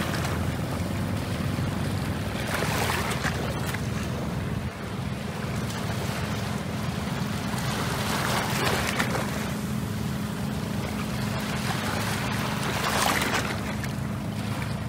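Wind rushing over the microphone by open water, gusting louder three times, over a steady low engine hum.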